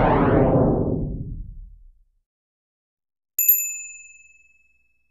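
A deep, swelling whoosh sound effect fades out about two seconds in. About three and a half seconds in, a bright bell-like ding, struck twice in quick succession, rings out and fades over about a second and a half.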